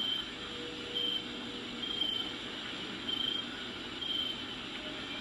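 Crickets chirping in a rainforest nature recording, one short high chirp about once a second, over a steady hiss of rain.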